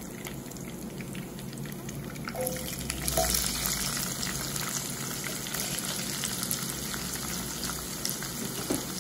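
Hot oil with cumin seeds and dried red chillies sizzling in a nonstick kadai as sliced onions are dropped in; the sizzle swells about three seconds in and holds steady as the onions start to fry.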